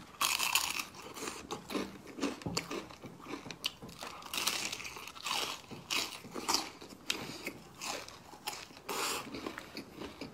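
Biting and chewing into a crispy fried chicken leg in sauce: a run of irregular crunches.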